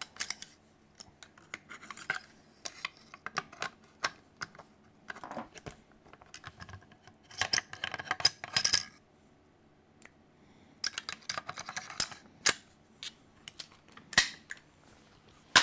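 AR-15 bolt carrier group and upper receiver being handled and put back together: a run of small metal clicks and sliding scrapes, busiest about halfway through, with a few sharp metal clacks near the end as the parts seat.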